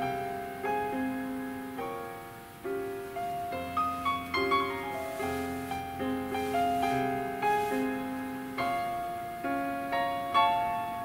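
Solo piano music played back through a car-audio component setup: Oris Electronics JB T32 titanium-dome tweeters crossed over second-order at 5 kHz, with midbass drivers cut off second-order at 4 kHz. The piano notes strike and die away, a few each second.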